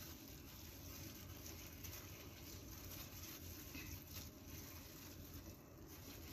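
Faint handling sounds of plastic-gloved hands pressing smoked salmon onto sushi rice and lifting a bamboo sushi rolling mat, soft rustles and ticks over a low steady hum.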